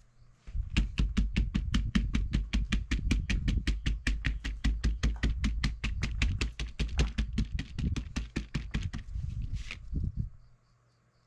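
A crumpled cloth rag patted rapidly against a poster board, about six dull taps a second, dabbing wet spray paint into cloud texture. The patting stops about two seconds before the end.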